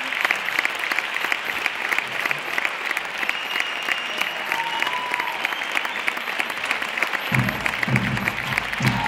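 Theatre audience applauding, a dense steady crackle of clapping. Near the end a low, regular beat sets in under the applause.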